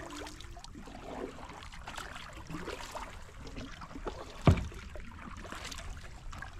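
Kayak paddling: water trickling and dripping off the paddle with small splashes, and one sharp knock about four and a half seconds in.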